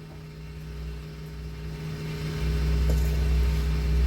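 Steady low mechanical hum, growing louder about two and a half seconds in.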